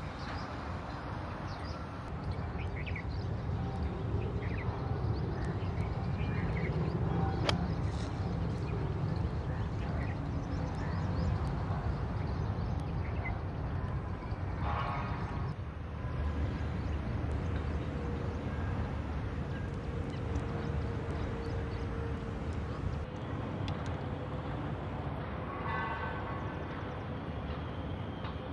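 Outdoor golf-course ambience: a steady low rumble with birds calling now and then, and one sharp click about seven seconds in.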